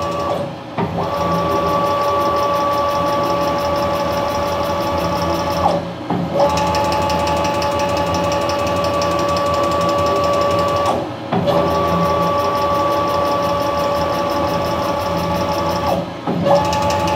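Stepper motors driving the CNC mill table's ball screw, whining steadily in several tones as the table traverses. It runs in stretches of about five seconds and stops briefly between them as the table reverses. A fast, faint clicking runs under the whine, which the owner traces to the hard plastic insert of the motor-to-ballscrew coupling shifting and rubbing.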